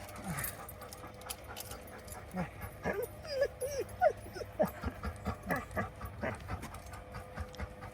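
A dog whimpering and whining in a string of short, high squeals, coming thick and fast from a couple of seconds in.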